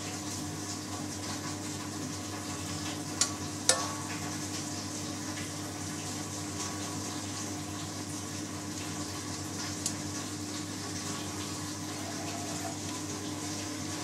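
Steady low hum and hiss, with two sharp clicks about three seconds in and a lighter one near ten seconds as the pump hose connector on the expansion vessel's Schrader valve is handled.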